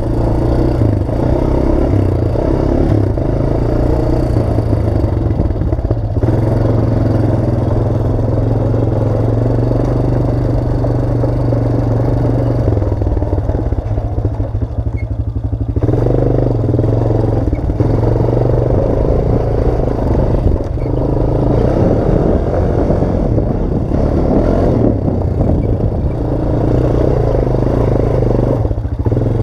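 Honda Recon 250 ATV's single-cylinder four-stroke engine running steadily with rattling from the quad, the engine note dipping briefly a few times as if easing off the throttle.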